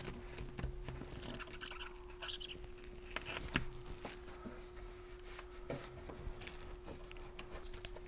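Faint rubbing and scratching of hands pressing and wrapping a piece of adhesive foam heat shielding down into place in the shifter tunnel, with scattered small clicks and a faint steady hum underneath.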